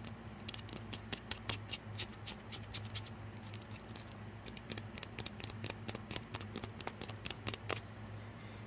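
Fingers scratching and picking at a small plastic Hatchimals collectible egg to open it: a run of quick, irregular clicks and scratches that stops about a second before the end, over a faint low hum.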